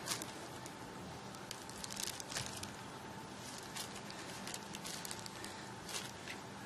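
Faint ice-rink arena ambience: a low steady hiss scattered with small clicks and crackles, under a faint steady whine.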